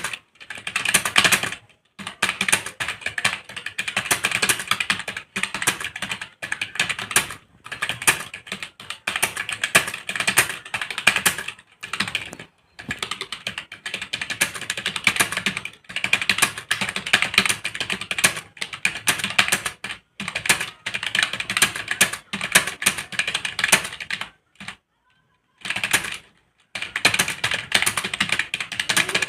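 Fast typing on a computer keyboard: rapid runs of key clicks broken by short pauses every second or two, with a longer pause of about two seconds near the end.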